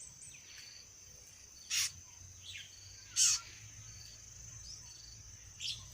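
Outdoor insect chorus: a steady high-pitched drone with short repeated pulses. Two brief sharp bird calls come about two and three seconds in.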